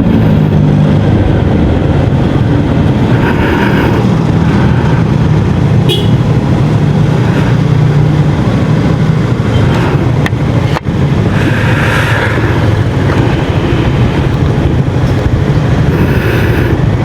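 Yamaha XMAX 250 scooter's single-cylinder engine running steadily while riding, with continuous road and traffic noise.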